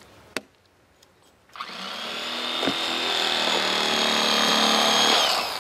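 Electric fillet knife running: a small motor with a steady high whine that starts about a second and a half in, runs for about three and a half seconds while cutting fish, and winds down with a falling pitch near the end. A single click comes shortly before it starts.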